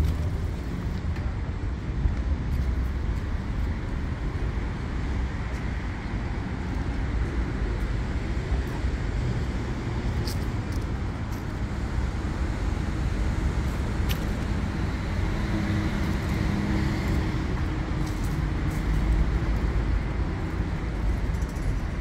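Steady road traffic noise from nearby city streets: a continuous low rumble of passing cars.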